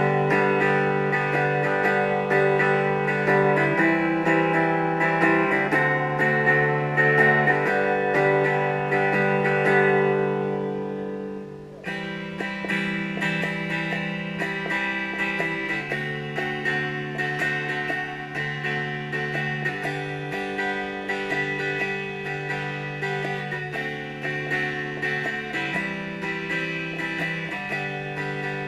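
Four-string cigar box guitar, strung with the top four strings of a six-string set in standard tuning, played amplified with a little gain: chords strummed continuously. The chords die away about ten seconds in and the playing starts again a couple of seconds later.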